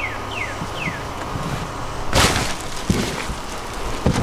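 A wooden-framed sofa dropped from a second-floor landing crashes onto the ground about two seconds in, followed by a couple of smaller thumps.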